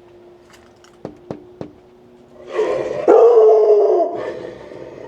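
Three sharp clicks, then a dog's loud, long excited cry of greeting about two and a half seconds in, dipping in pitch at its end.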